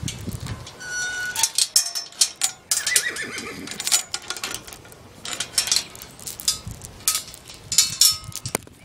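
Metal pipe paddock gate clanking and rattling in a run of knocks and clicks as it is handled, opened and shut. A horse whinnies briefly about three seconds in.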